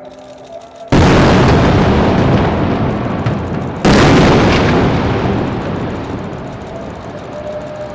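Two loud explosions about three seconds apart, each hitting suddenly and dying away slowly over several seconds.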